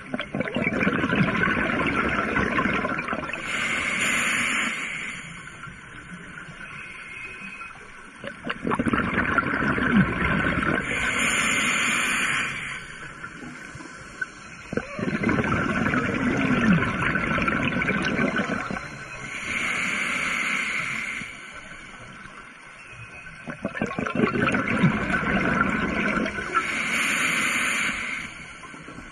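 Scuba diver breathing through a regulator, heard from the camera underwater: four slow breath cycles about eight seconds apart. Each cycle is a rushing, gurgling spell followed by a shorter, higher hiss, with quiet pauses between breaths.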